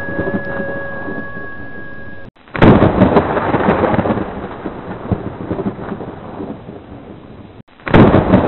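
Thunderstorm sound effect: steady rain with two loud claps of thunder, one about two and a half seconds in and one near the end, each rumbling away slowly.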